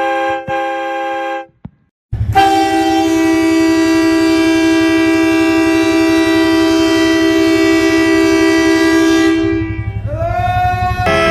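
Portable train horn, powered by a power-tool battery, blowing a chord of several tones at once: a short blast of about a second and a half, then after a brief pause a long blast of about seven seconds. Near the end a further blast starts with its tones sliding up in pitch before they settle.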